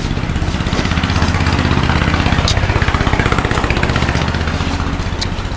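A small engine running with an even, pulsing beat. It grows louder over the first few seconds and then eases off.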